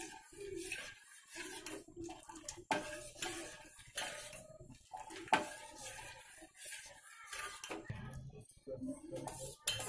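Steel ladle stirring thick porridge in a steel pot, with repeated short scrapes and clinks of metal on metal against the pot.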